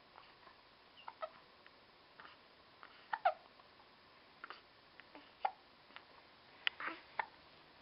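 A string of short, sudden hiccups at uneven intervals, some ending in a brief falling squeak; the loudest comes about three seconds in.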